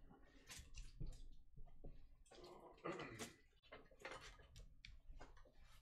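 Faint, irregular clicks and short rustles of things being handled on a table.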